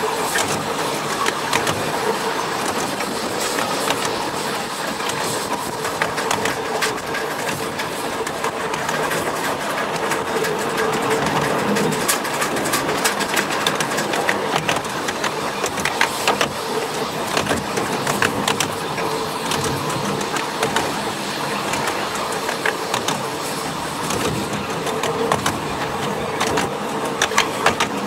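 A 7.25-inch gauge miniature steam train running along its track, heard from aboard a carriage: a steady running noise with many sharp clicks and rattles from the wheels and carriages.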